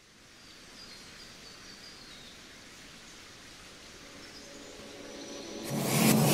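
Intro of a backing music track: faint hiss with high, bird-like chirps, slowly swelling, then the full beat and bass come in about five and a half seconds in.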